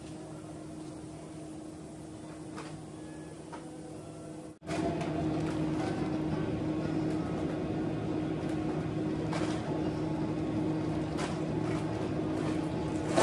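Steady hum of commercial kitchen equipment with a couple of low tones; it cuts out for an instant about four and a half seconds in and comes back louder. A few faint clicks of a knife against a wooden cutting board while slicing salmon.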